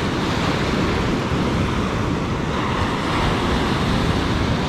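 Ocean surf breaking and washing up a sandy beach, a steady rush of water.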